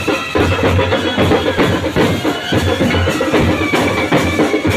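Indian wedding brass band playing: large bass drums and snare drums beating a dense rhythm under trumpets, clarinets and saxophone carrying the tune.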